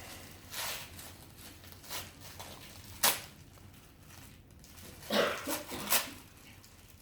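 Paper and packaging rustling in handling, in short scattered bursts, with a sharp click about three seconds in and a louder cluster of rustles near the end.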